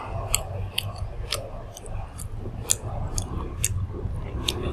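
Close-up sounds of a person chewing grilled pork intestines: wet chewing with sharp, irregular lip and mouth smacks, about a dozen clicks in all. A steady low hum runs underneath.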